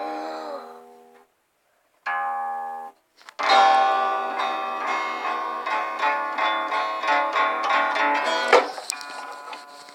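Music with plucked-string notes: two short phrases broken by brief silences, then a longer, fuller passage that drops off sharply about eight and a half seconds in and runs on quietly.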